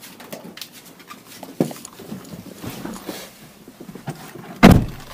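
Rustling and small knocks as a person gets into a car, then a car door shutting with a heavy thump near the end.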